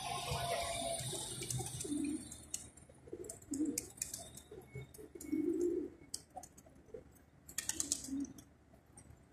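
Feral rock pigeons cooing, several low coos a second or two apart, with scattered sharp clicks among them.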